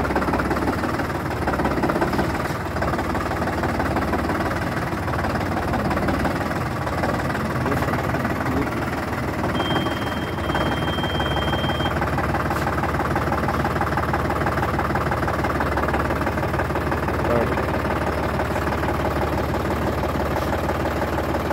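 John Deere 5405's three-cylinder diesel engine idling steadily on the parked tractor.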